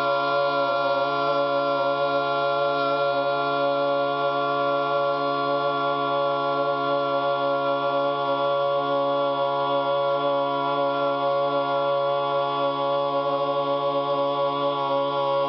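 A single held, chant-like vocal note with many overtones, steady in pitch and loudness, cutting off abruptly at the very end.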